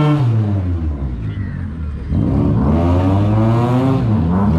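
Mitsubishi Cedia drift car's engine revving up and down while it spins donuts on dirt. The pitch falls and drops away for about a second, then climbs again about two seconds in and swings up and down in surges.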